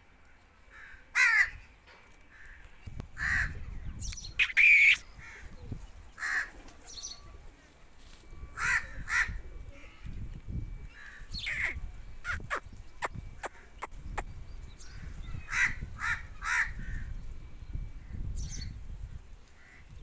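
Indian ringneck parrot giving short, harsh calls, about a dozen spread out over the stretch, the loudest about five seconds in.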